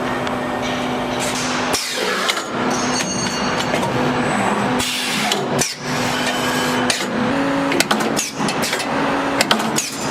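CNC busbar punching and shearing machine at work: a steady hum that shifts pitch a few times, with repeated sharp metallic knocks and clanks, broken off abruptly several times.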